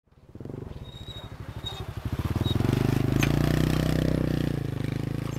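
Small motorcycle engine running close by, growing louder about two seconds in and then easing off slightly, with a single sharp click partway through.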